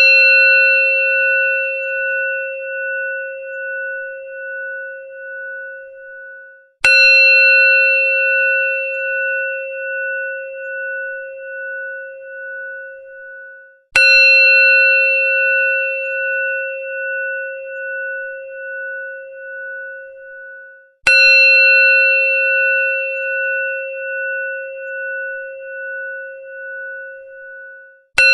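A temple bell (ghanti) struck about every seven seconds, with the first stroke right at the start and three more after it. Each stroke gives a bright clang and then a ringing tone that dies away with a slow wavering pulse.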